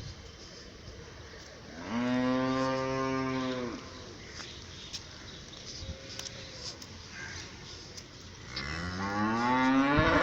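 Dairy cattle mooing: one long low moo about two seconds in, then a second moo that starts near the end, rising in pitch and getting louder.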